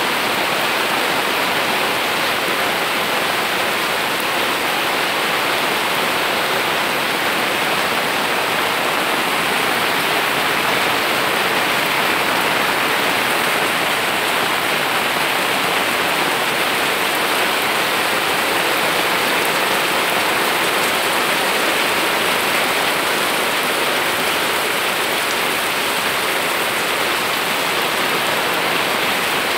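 Steady rain falling on garden plants and leaves, an even, unbroken hiss of water.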